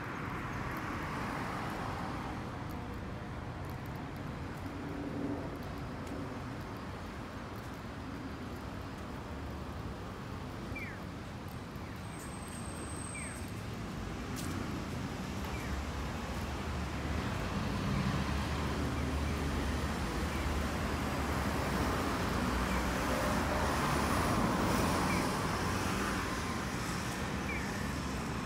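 Street traffic: a steady hum of cars going by, growing louder as heavier traffic or a vehicle passes in the second half.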